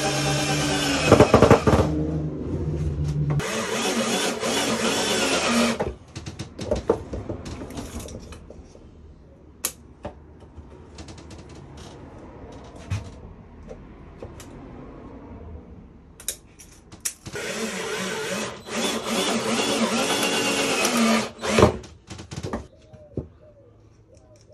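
Cordless drill driving screws into pallet wood in three runs, the motor speeding up and slowing with the trigger. Between the runs, wooden pieces knock and clatter as they are handled.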